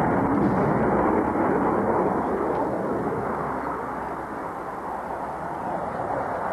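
Jet fighter's engine noise during a low display manoeuvre: a loud, even rushing that is strongest in the first two seconds and then eases off as the aircraft turns away.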